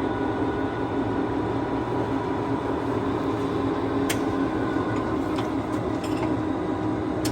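Poreba TPK90 engine lathe running steadily, its headstock and drive giving an even mechanical hum. Two sharp clicks sound over it, about four seconds in and near the end.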